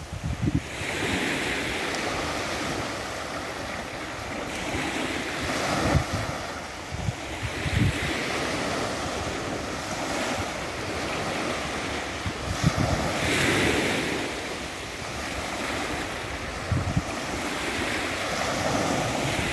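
Small waves breaking and washing up on a sandy beach, surging and falling back every few seconds. Wind buffets the microphone with short low thumps.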